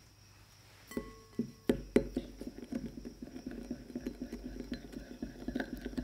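Pink silicone whisk beating two salted egg yolks in a small ceramic bowl. It starts about a second in with a few louder clicks, then settles into quick, steady whisking strokes, several a second.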